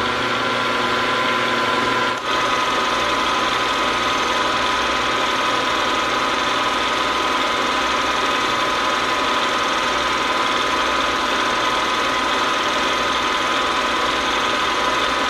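Milling machine running a fly cutter through a light finishing face cut across an aluminium plate, at turned-down spindle speed and feed. It is a steady machine whine that dips briefly about two seconds in.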